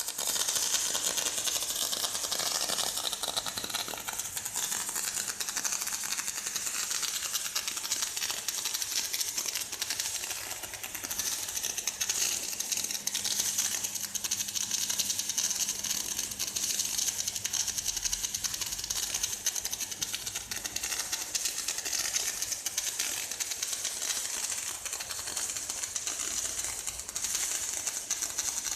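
Gas-shielded (MIG/MAG) welding arc crackling steadily, a dense, fast, even crackle with a bright hiss.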